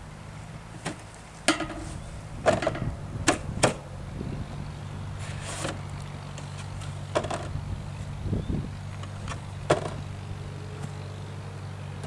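Basketballs knocking against the hoop, the driveway and a pole-mounted ball bin: a run of sharp knocks bunched in the first few seconds, then a few more spaced apart. A steady low hum runs underneath.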